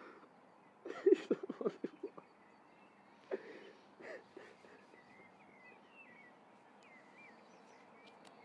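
A person crying, with a run of short, catching sobs about a second in and a couple more a little later. Faint bird chirps in the second half.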